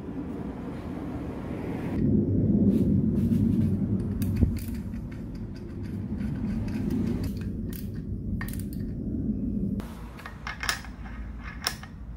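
Hand work on an angle grinder's gear head: a low scraping and rubbing as the steel wheel guard is fitted on its collar and its clamp screw is driven in with a screwdriver, then several sharp metallic clinks near the end as a flange is set onto the threaded spindle.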